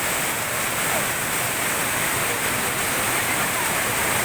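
Steady rushing of running water, an even hiss spread across all pitches that does not change in level.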